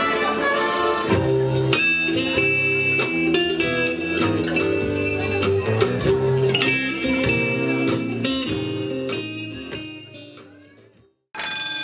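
Guitar band playing a blues-style number with electric and acoustic guitars, bass and drums, fading out near the end. About a second in it takes over from the tail of a violin-and-accordion tune.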